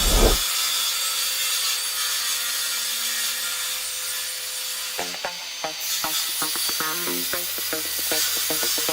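Cordless circular saw cutting through wood, a steady rasping noise that starts with a low thump. Rhythmic music comes in about halfway through.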